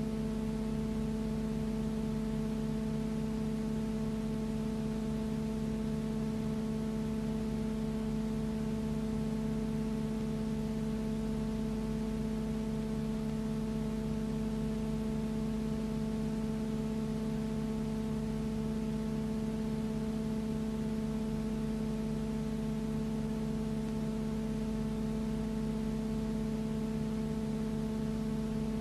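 Steady, unchanging hum: a low tone with a stack of evenly spaced overtones over constant hiss, with no rise or fall as the aircraft pass. This is noise on the film's soundtrack, not the aircraft's engines.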